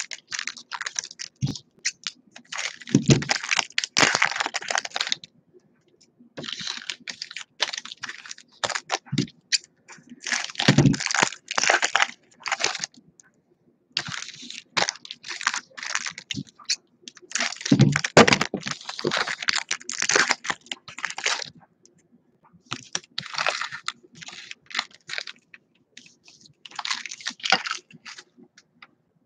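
Foil and plastic trading-card pack wrappers being torn open and crinkled in repeated bursts of a few seconds each, with cards handled on the table and a few dull thumps.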